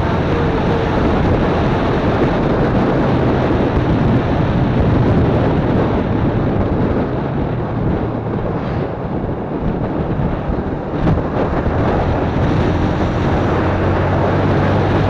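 Yamaha FZ150i's 150 cc single-cylinder engine running while riding, mixed with heavy wind rush on the action camera's microphone. The sound eases off for a few seconds past the middle, then picks back up.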